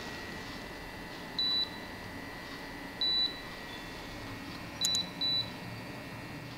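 Bingo Pro apex locator beeping in its demo mode: short high beeps, one about a second and a half in and another about three seconds in, then a double beep near five seconds as the file image appears in the canal on its display.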